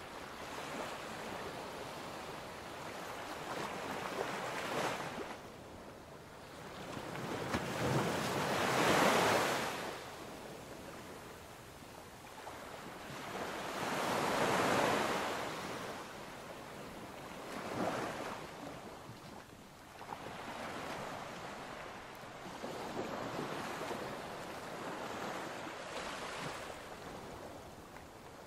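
Ocean surf: waves washing in as a hiss that swells and fades every few seconds, with the biggest surges about nine and fifteen seconds in.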